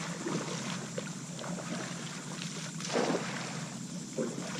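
Water lapping and splashing against a kayak hull, with a louder splash about three seconds in and a steady low hum underneath.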